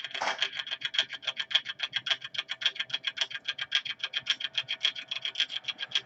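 A rapid, even clicking, about ten clicks a second, with a steady high ring running through it; it starts suddenly.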